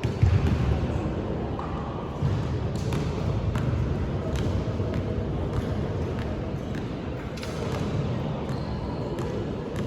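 Basketball game sounds in a gym: a ball bouncing and thudding on the hardwood floor at irregular intervals over a steady low rumble of the hall.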